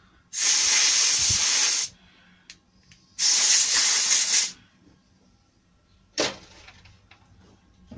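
Compressed-air blow gun blasting air through small cleaned spray-gun parts in two bursts of about a second and a half each, clearing loosened crud from their holes. A brief sharp sound follows about six seconds in.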